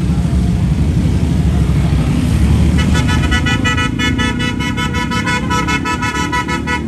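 Motorcycle engines running and revving as the bikes pull away one after another. From about three seconds in, a steady high-pitched tone rises above them.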